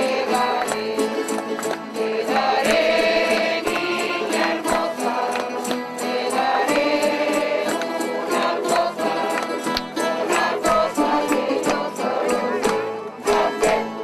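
Canarian folk group singing together in chorus to a strummed accompaniment of guitars and a small timple, with a hand-held tambourine beating time.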